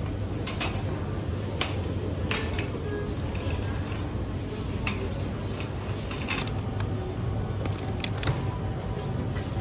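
Black wire-mesh shopping baskets clinking and rattling as one is pulled free of a stacked row and handled, a scatter of sharp metal clinks over a steady low hum.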